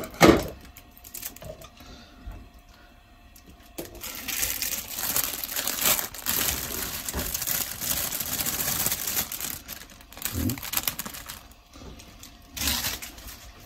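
Plastic wrap of a pack of thinly sliced pork belly crinkling and rustling as the slices are shaken out into a frying pan, with a short loud knock at the very start.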